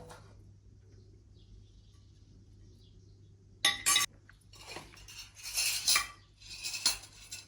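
Cutlery clinking and scraping on plates during a meal: two sharp clinks about halfway through, then a few seconds of scraping with small knocks.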